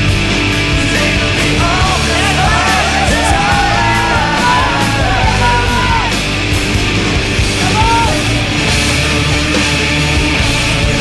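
Loud punk-style rock music with a shouted vocal.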